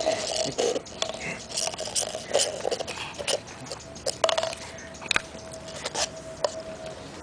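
A dog licking whipped cream out of a paper cup and pushing the cup along concrete: irregular wet licks mixed with the cup tapping and scraping on the pavement.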